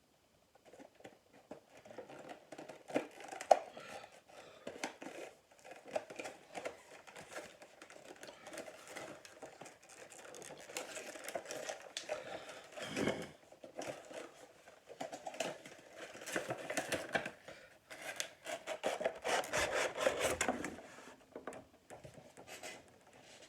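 Toy bobblehead packaging being handled and opened: irregular crinkling, tearing and scraping with many small clicks, and one sharp click about three and a half seconds in.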